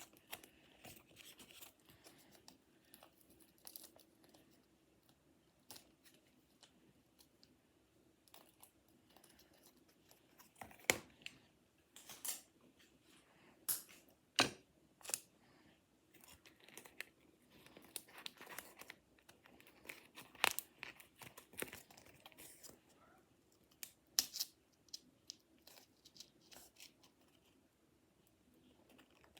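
Scissors snipping paper and cardboard by hand, with paper crinkling and rustling between cuts; the snips come irregularly, the sharpest ones scattered through the middle.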